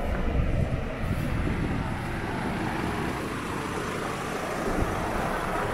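Steady low rumble of a passing vehicle in city-street ambience.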